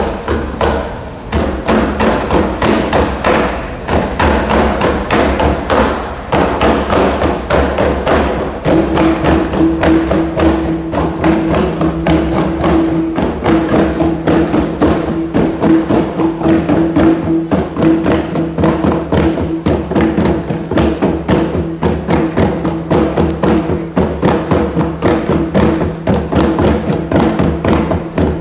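Ensemble of long, rattan-laced traditional hand drums played by hand in a fast, dense, driving rhythm. A steady ringing tone joins the drumming about nine seconds in.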